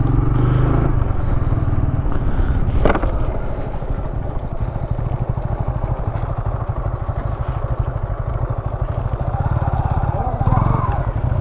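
Motorcycle engine running steadily at riding speed, with a rapid even pulse from its firing. There is a single short knock about three seconds in.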